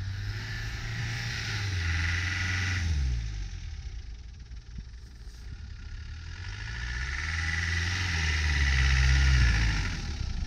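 Land Rover Defender engines driving on a snowy track: one pulls away during the first three seconds, then a second Defender approaches, growing louder as it passes close by about nine seconds in, and drops away just after.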